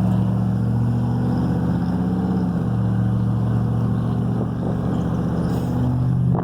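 Vehicle engine running at a steady pitch while driving, with road noise.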